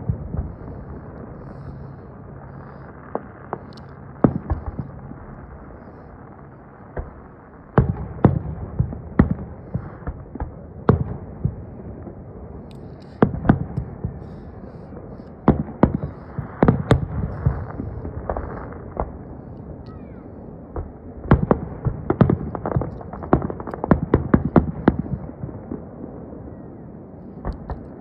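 Aerial firework shells bursting: sharp bangs in quick clusters, several a second at the busiest, with quieter spells between them.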